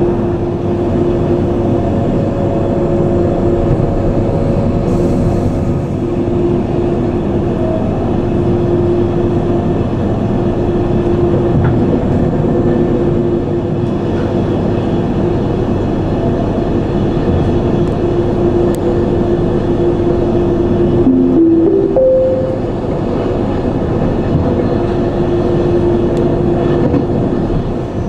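Glacier Express train running along the track: a steady rolling noise with a steady humming tone. About three quarters of the way through, a short tone rises in a few steps.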